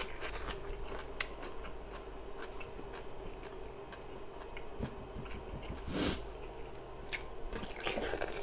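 Soft chewing with small mouth clicks, a short noisy rustle about six seconds in, then a crunchy bite into a brine-pickled cucumber near the end.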